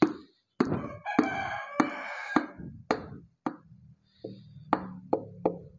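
Hammer tapping on a wooden block laid over a cylinder liner, driving the liner down into the engine block of an Isuzu Panther 2.5: a dozen or so sharp knocks at an uneven pace.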